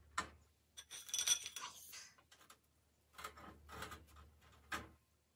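Tableware being handled and set down: dishes, glass and cutlery clinking, with a few sharp clicks and a short cluster of ringing chinks about a second in.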